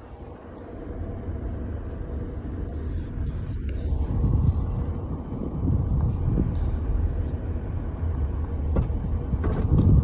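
A car's engine and road noise while driving, a steady low rumble that grows louder over the first few seconds and then holds.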